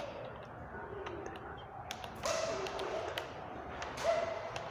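Keys of a handheld calculator being pressed: a scatter of light clicks, with two louder, noisier sounds about two and four seconds in.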